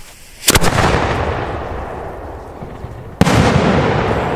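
3-inch aerial firework shells bursting. There is a sharp double bang about half a second in and another loud bang a little after three seconds, each followed by a long rolling echo.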